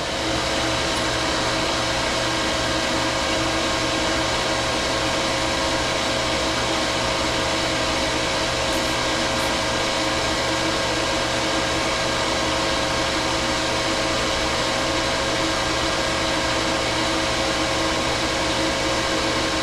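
Steady machine noise: a constant whir with a rushing hiss and several fixed hum tones, unchanging throughout.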